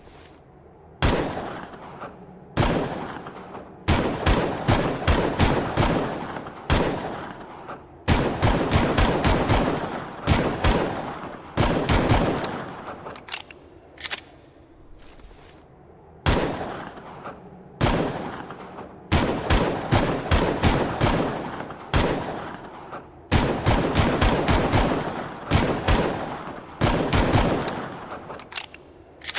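Longslide pistol gunshot sound effect: shots fired singly and in quick strings of several, each with a fading echo tail.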